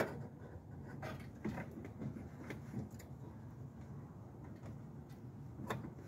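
Scattered plastic clicks and knocks from hands working a loosened car headlight assembly free. The sharpest click comes right at the start; the rest are lighter and irregular, over a faint steady low hum.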